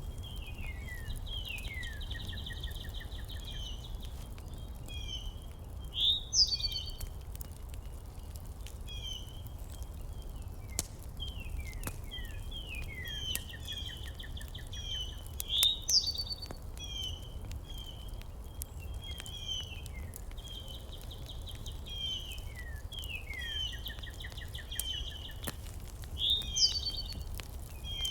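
Small birds chirping and trilling, with short falling notes, buzzy trills and a louder rising call about every ten seconds, over a steady low rumble.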